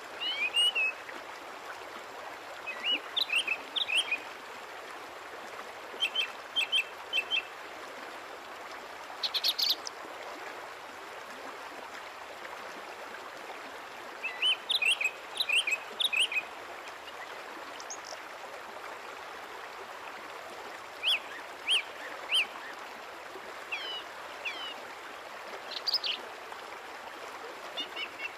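Small birds chirping in short phrases of a few quick high notes, repeated every couple of seconds, over a steady background hiss.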